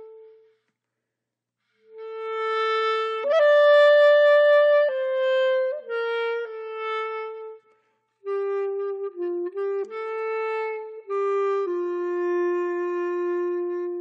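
Background music: a slow solo woodwind melody of held notes, one note at a time, pausing briefly about a second in and again around eight seconds.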